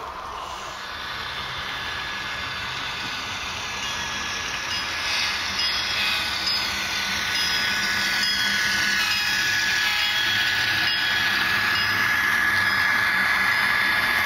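HO scale model freight train rolling past, its wheels running on the track with a thin, steady whine, growing louder as the locomotives and autorack cars come close.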